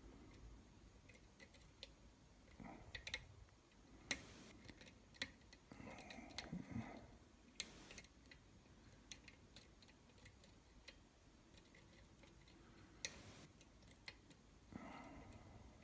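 Faint, scattered clicks of a lock pick working the pins of a challenge lock under very light tension, with a few soft scrapes of the pick in the keyway.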